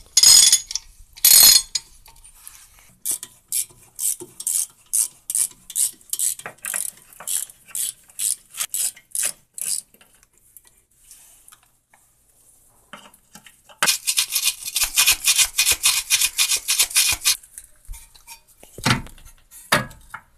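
Ratchet wrench and metal sockets working the bolts of a car's front hub and suspension. First come two loud bursts of clicking, then a steady series of single clicks about three a second. Near the middle a fast run of rapid clicking lasts about three seconds, and a couple of metallic knocks follow near the end.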